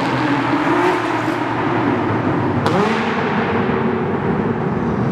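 Air-cooled Porsche 911 flat-six engine pulling under acceleration over a steady rush of noise. There is a gear change about two and a half seconds in, after which the engine note climbs again.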